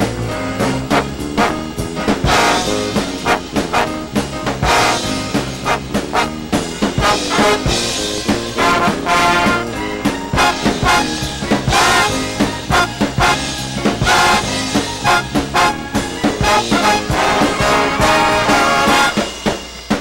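Big-band swing music with brass horns over a steady beat.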